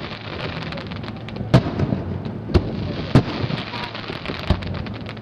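Aerial firework shells bursting: four sharp booms about a second apart, with crackling between them from about two seconds in.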